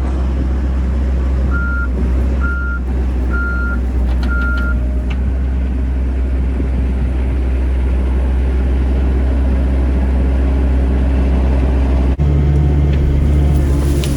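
Caterpillar 307C mini excavator's diesel engine running steadily, with its travel alarm beeping four times as the machine tracks. Near the end the engine note changes abruptly.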